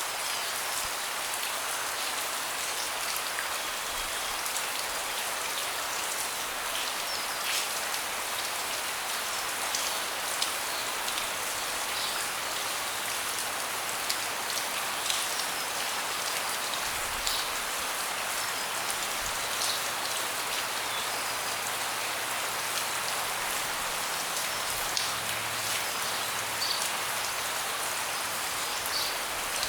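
Steady rain falling, a constant hiss with scattered individual drips tapping close by.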